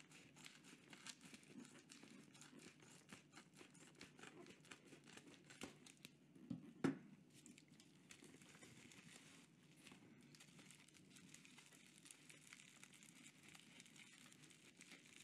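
Faint crinkling and crackling of bubble wrap being unwrapped by hand, a little louder about seven seconds in.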